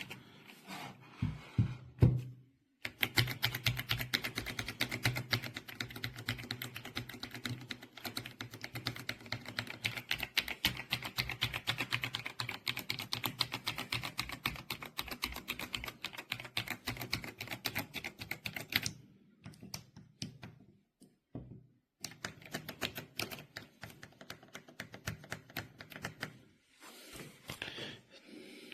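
Fast, continuous typing on a mechanical keyboard: a dense run of rapid key clicks that stops for a few seconds past the middle, then starts again. A few separate knocks come before the typing begins.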